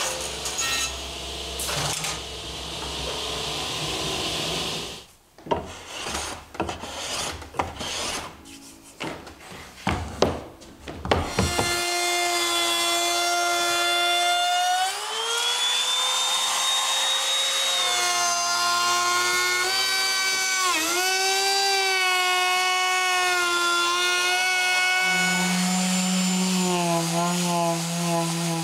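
A vertical panel saw hums steadily at first. About five seconds in, irregular sharp clicks and knocks follow. From about twelve seconds a trim router whines as it cuts a board edge, its pitch shifting and dipping under load, and near the end a lower hum joins in.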